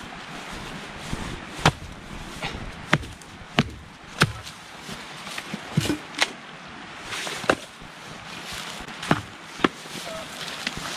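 Hatchet splitting firewood on a chopping log: sharp knocks of the blade into wood, about nine at uneven intervals.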